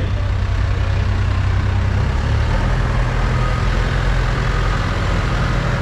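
Diesel engine of a small Hyundai Robex excavator running steadily, its pitch stepping up slightly about two seconds in.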